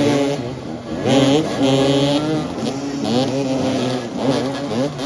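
Several motoball motorcycles' engines revving up and down in quick rises and falls as the riders jostle at close quarters, with fresh surges about a second in and again past four seconds.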